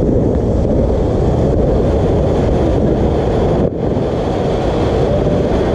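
Ground firework fountain spewing a tall column of sparks, a loud, steady, dense rushing sound, with a brief dip about three and a half seconds in.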